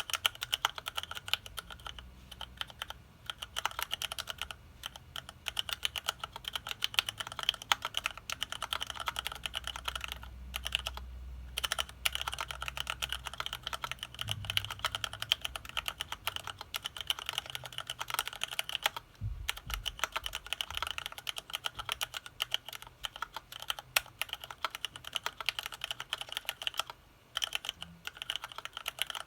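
Continuous typing on an HHKB-layout keyboard in a Tofu case with retooled Cherry MX Black linear switches: rapid key clacks, with a few brief pauses.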